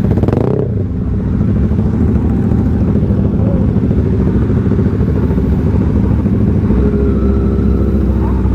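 Kawasaki ZX6R sport bike's inline-four engine running steadily.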